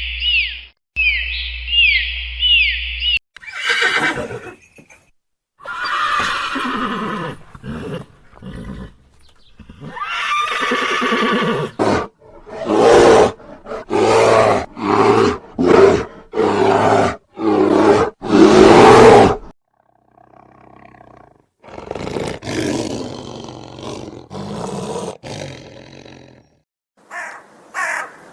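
A succession of different wild animal calls, the loudest part a run of about ten strong calls in quick succession, roughly one every three-quarters of a second, that ends suddenly; quieter calls follow after a short gap.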